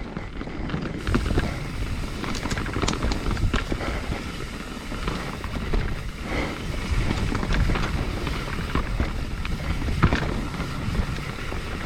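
Mountain bike riding down a rough dirt trail: wind buffeting the microphone over the rumble of tyres on dirt and rock, with the bike rattling and clacking over bumps and a hard knock about ten seconds in.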